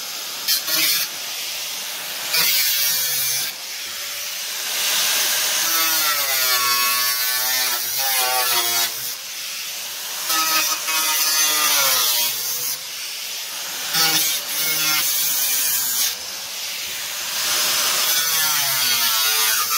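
Harbor Freight 4.5-inch angle grinder with a thin aluminum-oxide cut-off wheel cutting through the rusted sheet-steel floor pan of a 1970 VW Beetle. The motor's whine sags and recovers as the wheel bites into the metal and eases off, with repeated stretches of loud grinding hiss.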